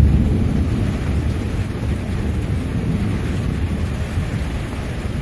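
Thunder rumbling low and slowly dying away over a few seconds, over steady rain.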